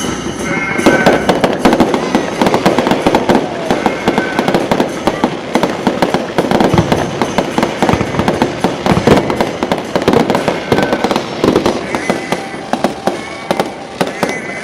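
Fireworks display: a dense, rapid run of bangs and crackling that thickens about a second in and keeps going without a break.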